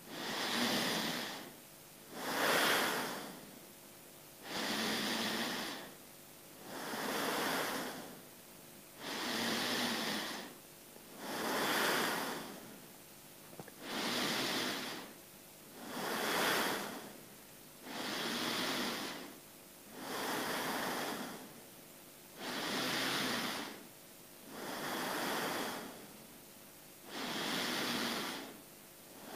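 A person breathing slowly and deeply in and out, lying at rest on his back, in an even rhythm of about thirteen breath sounds, each a little over a second long.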